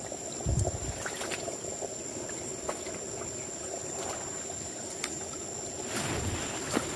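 A small forest stream flowing and trickling steadily, with a low thump about half a second in and brushing, rustling movement through the undergrowth near the end.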